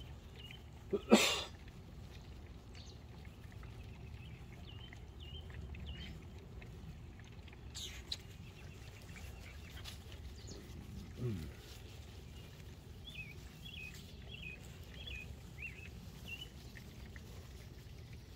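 Goldendoodle puppies: one loud sharp bark about a second in, and a short low call falling in pitch around eleven seconds. Small birds chirp in the background.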